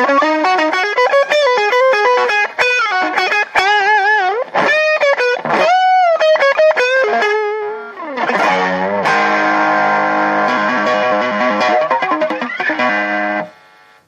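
Fender Japan '69 reissue Stratocaster electric guitar played lead: quick single-note runs and string bends with wide vibrato, then a falling pitch glide about eight seconds in. A held chord rings after it and cuts off sharply shortly before the end.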